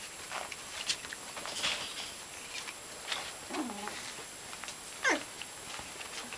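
Young puppies play-fighting, giving short high yips and squeaks, with a longer falling yelp about five seconds in, over light scuffling.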